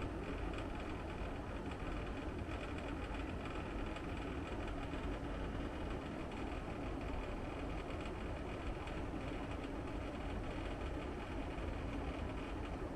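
Split air conditioner indoor unit running, with a steady buzzing hum from its vibrating casing. The owner traces the vibration to a mounting plate that was never firmly fixed to the lightweight brick wall.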